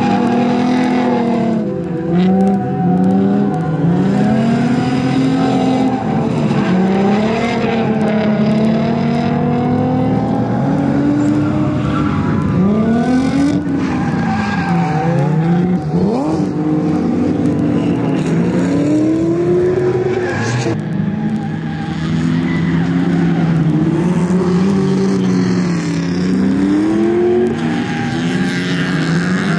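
Drift cars' engines revving up and down over and over as they are driven sideways, with tyre squeal beneath.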